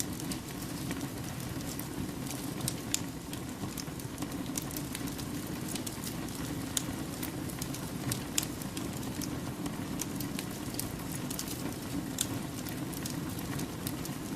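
Wood campfire burning: a steady low rush of flame with frequent irregular crackles and pops from the logs, a few of them sharply louder.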